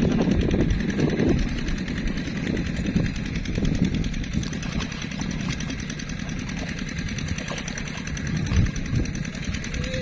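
A steady, low engine drone, with a slightly louder stretch in the first second or so.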